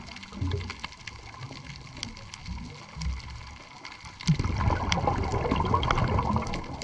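Underwater sound on a coral reef: scattered sharp clicks and low bubbling surges. About four seconds in it turns into a louder, continuous rush of gurgling water.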